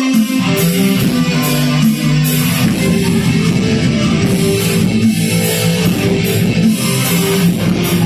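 Rock band playing live: electric guitars over keyboard and a drum kit, with steady cymbal hits.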